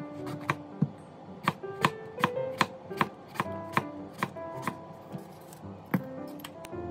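Kitchen knife slicing an eggplant into rounds on a wooden cutting board: a dozen or so sharp knocks of the blade meeting the board, about two or three a second, stopping about six seconds in. Soft background music plays under it.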